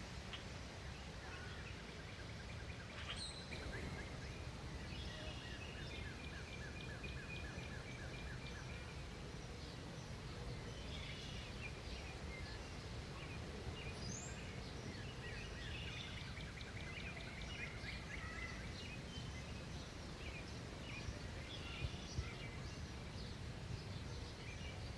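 Several songbirds chirping and singing fast trills, calls overlapping throughout, over a steady low background noise.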